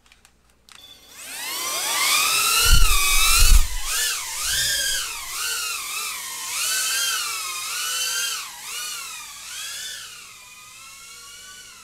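BetaFPV Pavo Pico 2 FPV drone's brushless motors spooling up with a steeply rising whine about a second in, then whining up and down in pitch with the throttle as it flies. Two low thumps come near three seconds in.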